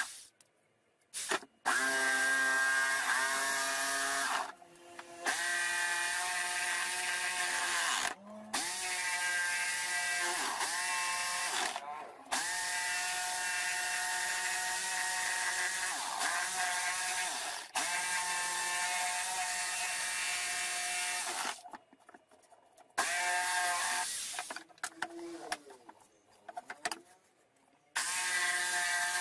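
850-watt Gran Éxito jigsaw cutting a curve in a wooden board, its motor whine stopping and starting again several times, the pitch sagging now and then as the blade works through the wood.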